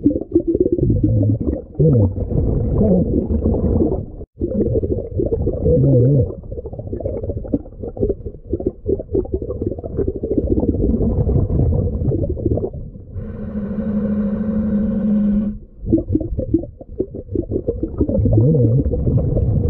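Muffled underwater sound around a diver working the bottom: a dense, low rumble with warbling tones drifting in and out. A steady low hum comes in about two-thirds of the way through and stops after a couple of seconds.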